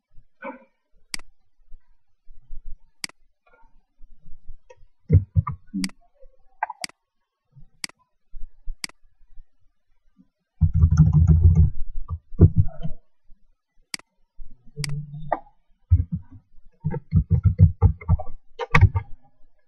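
Typing on an ASUS K54 laptop's keyboard: scattered single key clicks, then quick runs of keystrokes with dull thumps about halfway through and again near the end.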